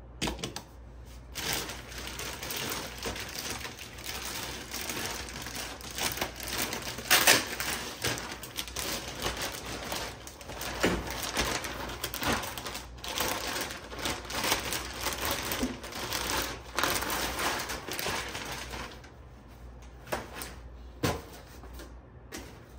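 Rustling and close-packed clicking of plastic parts and packaging being handled, with sharper clacks now and then, as a lawn mower's grass-catcher bag and its frame are fitted together. It goes quieter for the last few seconds, with one knock near the end.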